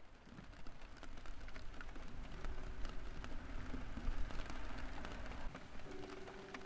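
Outdoor ambience fading in: a low, uneven rumble with light, scattered ticks and crackles. Soft music with held notes comes in near the end.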